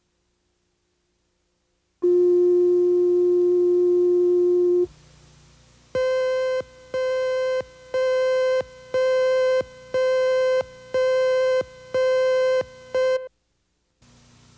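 Electronic line-up tones on a videotape leader. A steady low tone sounds for about three seconds. After a short pause a higher tone follows as about nine beeps, each close to a second long with brief gaps, ending abruptly.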